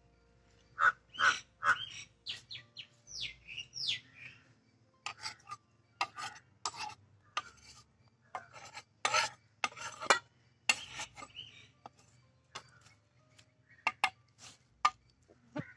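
Large knife scraping and cutting fish on a wooden chopping block: an uneven run of scratchy strokes and knocks. Birds chirp briefly about three seconds in.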